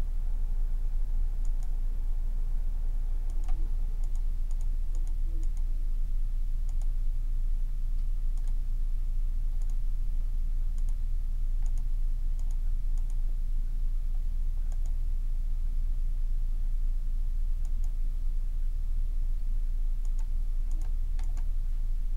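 Computer mouse clicking at scattered moments, some clicks in quick pairs or threes, over a steady low hum.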